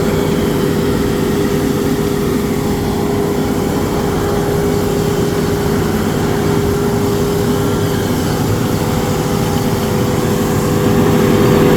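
Engine of heavy site machinery running steadily at constant speed, with a strong unchanging hum. It grows slightly louder near the end.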